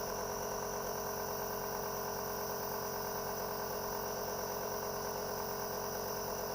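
Nebulizer compressor running with a steady hum during an inhalation treatment.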